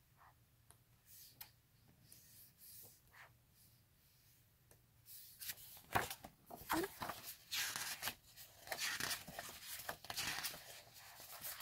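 Pages of a large photo book being turned by hand, paper rustling and flapping. A few faint rustles at first, then a quick run of page flips from about halfway through.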